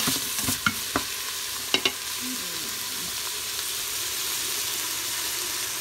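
Italian sausage, onions, celery and garlic sizzling in an Instant Pot's inner pot on the sauté setting, stirred with a wooden spoon. The spoon knocks and scrapes against the pot several times in the first two seconds, then the sizzle carries on steadily.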